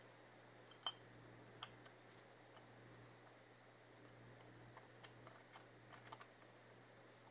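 Light metal clicks and scrapes of a gold-filled pocket watch's screw-on back cover being turned onto the case by gloved fingers. There is one sharp click about a second in and a cluster of faint irregular clicks near the end, over near silence.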